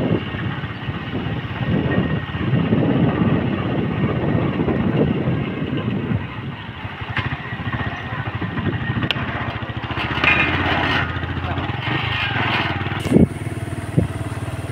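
Small motorcycle engine running steadily while riding, with wind rumbling on the microphone in the first half. Two sharp knocks come near the end, the first the loudest sound in the stretch.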